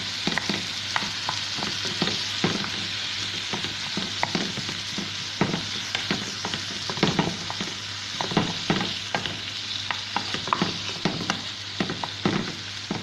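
Food frying in oil in a pan, a steady sizzle, with a utensil stirring and scraping, knocking against the pan in irregular clicks a couple of times a second.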